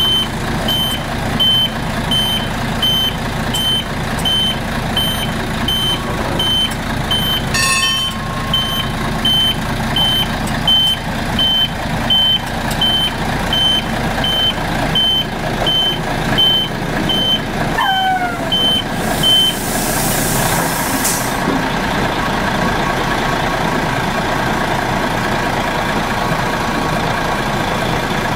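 Rittnerbahn electric railcar at a station platform: a steady run of short, high warning beeps sounds for about 20 seconds over the railcar's running noise, with a single clank about 8 seconds in. The beeps stop, a short hiss of air follows, and the railcar then hums steadily as it pulls away.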